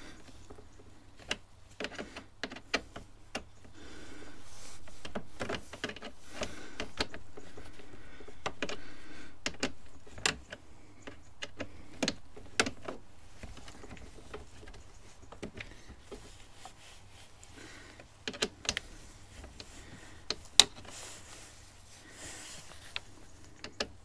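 Irregular small clicks and light metallic rattles of hand tools and screws being worked on a motorcycle's front fairing and radiator panels, with soft rustling in between and one sharper click near the end.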